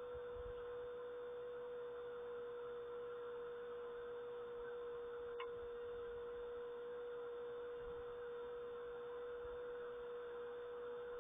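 A steady pure tone held at one pitch, over a faint hiss, with a single click about five seconds in.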